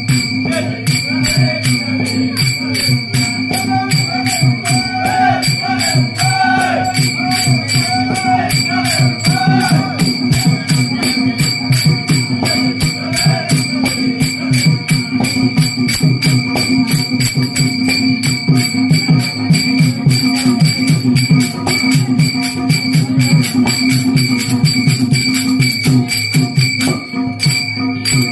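Many pairs of small brass hand cymbals (taal) clashing together in a fast, steady bhajan rhythm over a hand drum, with a sustained metallic ring.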